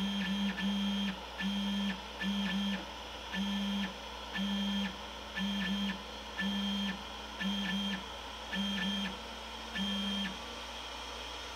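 Robo 3D R1+ Z-axis stepper motors driving the hot end down toward the build plate in about a dozen short jogs, roughly one a second: each a steady hum with a high whine that starts and stops abruptly.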